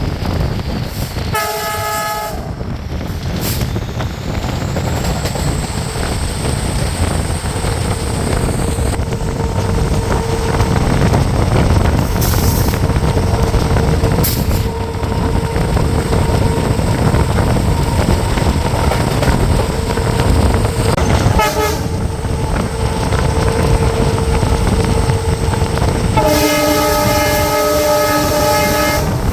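WDP4 locomotive's EMD diesel hauling a passenger train, with its multi-tone horn sounding three times: a short honk near the start, a brief one about two-thirds through, and a longer blast near the end. Under it runs the steady rumble of the moving train, with a steady hum from the locomotive setting in early on.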